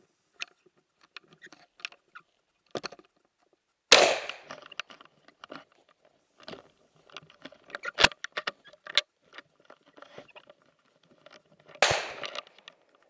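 Two gunshots from a hunting gun about eight seconds apart, each with a short echoing tail, amid scattered clicks and knocks of the gun being handled.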